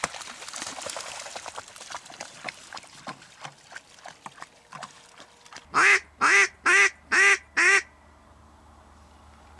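Water sloshing and splashing as a person wades and a dog swims through shallow floodwater. About six seconds in come five loud duck quacks in quick succession, each rising then falling in pitch, like a hen mallard's quacking.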